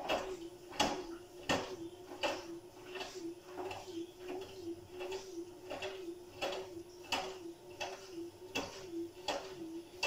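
Front-loading washing machine tumbling a wet wash load: a steady motor hum with a slight regular waver, and a knock of the laundry dropping in the drum about every three-quarters of a second.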